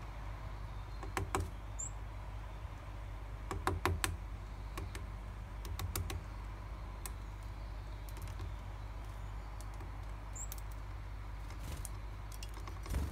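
Varied tit hammering a sunflower seed against a wooden table with its bill to crack the shell: sharp, irregular knocks in quick clusters, then more sparsely.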